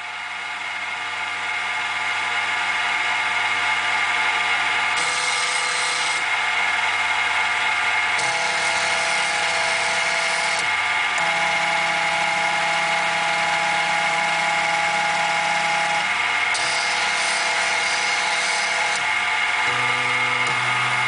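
Milling-machine spindle running with a steady high whine, its end mill cutting into a wooden board, getting louder over the first few seconds and then holding level. Under it, the table's stepper motors hum, their pitch changing in steps every few seconds as the axes move.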